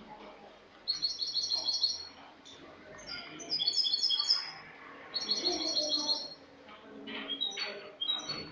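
European goldfinch (Spanish jilguero) singing: three bursts of quick, high, twittering trills about a second long with short pauses between, then a few separate chirps near the end. The owner presents it as a clean song (cante limpio).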